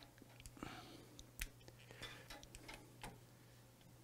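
A few faint clicks and taps of a microwave door micro switch being handled and pressed into its plastic holder, the loudest about a second and a half in, over a faint steady hum.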